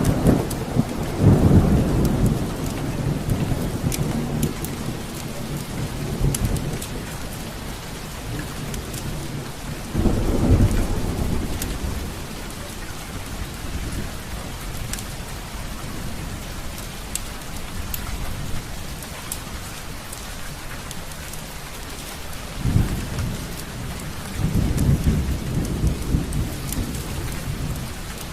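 Steady rain with rolling thunder rumbling up about a second in, again about ten seconds in, and near the end. Scattered sharp crackles sound over the rain throughout.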